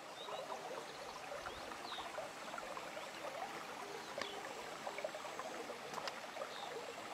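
Faint, steady running-water hiss of a small shallow stream, with a few short, high, faint chirps.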